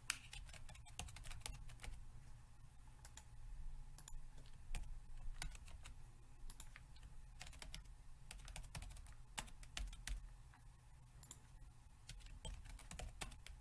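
Computer keyboard typing: faint, irregular key clicks coming in short runs with pauses between them.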